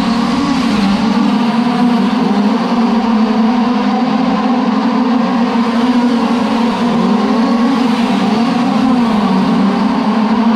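A pack of 1/5-scale RC dirt oval race cars with small gasoline two-stroke engines running together. Several engine notes overlap, each rising and falling in pitch as the cars throttle through the turns and pass by.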